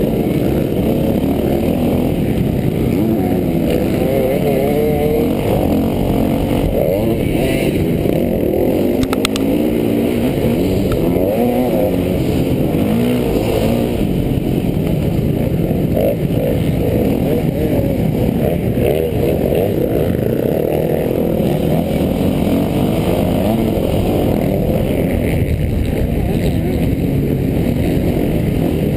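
Motocross bike engine heard up close from the rider's own camera mount, running hard with the revs rising and falling continually as the throttle is worked through the corners and straights.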